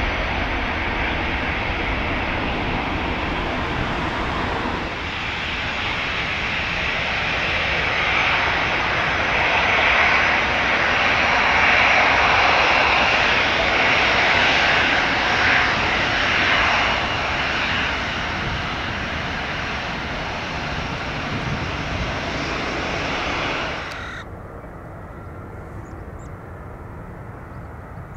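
Airbus A350-900's Rolls-Royce Trent XWB turbofans at take-off power, growing louder to a peak midway and then fading. The sound cuts off suddenly near the end, leaving a quieter steady rumble.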